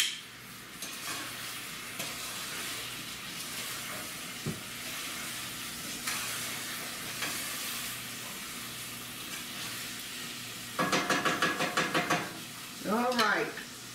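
Blackberries simmering and hissing in a saucepan while a wooden spoon stirs them. A quick run of rapid spoon strokes comes about eleven seconds in.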